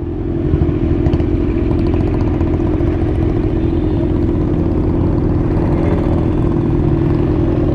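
Motorcycle engine running steadily at an unchanging speed.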